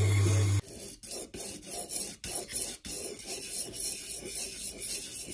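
A sharpening machine's motor hums steadily and cuts off about half a second in. Then a plane blade is honed by hand on a sharpening stone, a quick run of short back-and-forth scraping strokes, about two to three a second.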